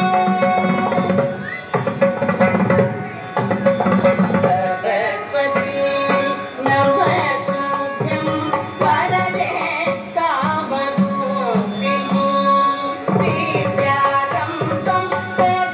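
Carnatic-style classical dance music: a gliding melody over steady held tones, with hand-drum strokes keeping a regular beat.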